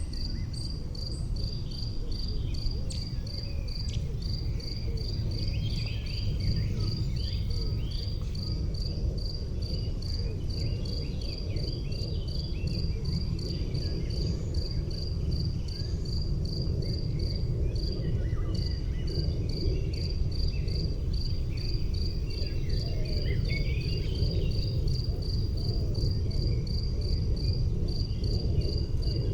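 An insect chirping in a steady, even rhythm, about two to three high chirps a second, with one short pause a little past the middle. Faint scattered chirps and a low steady rumble lie underneath.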